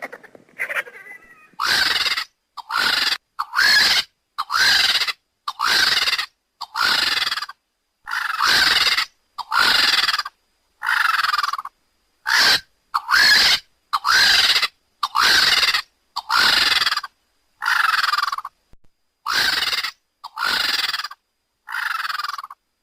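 Lappet-faced vulture calls: a string of about twenty short, harsh, raspy calls, roughly one a second, each with a brief arched squeal in it, spliced together with dead-silent gaps between them.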